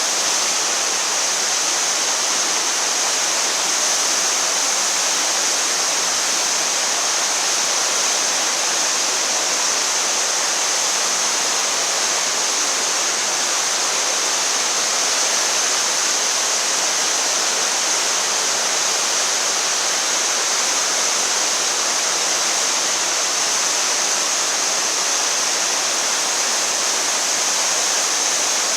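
Waterfall in a narrow rock gorge: water rushing steadily and without a break, with a strong hiss.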